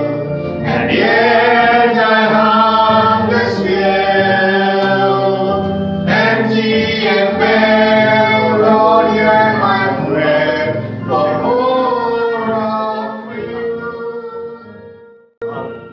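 A man and a boy singing a slow hymn together, the singing tailing off over the last couple of seconds.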